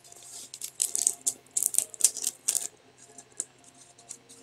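Packing tape crinkling and crackling as it is peeled off a rolled diamond painting canvas by hand. A run of sharp crackles comes in the first two and a half seconds, then a few fainter ones.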